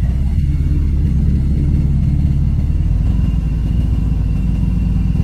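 Harley-Davidson motorcycle's V-twin engine running steadily at low speed through a tight, leaned-over U-turn, a deep and even engine sound.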